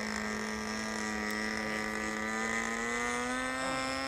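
RC Piper Cub model airplane's motor and propeller droning steadily in flight, the pitch rising a little about three seconds in as the throttle comes up.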